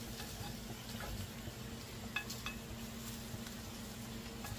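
Light clicks and faint scraping of a black spatula moving roasted Brussels sprouts around a white ceramic baking dish, over a steady low hum.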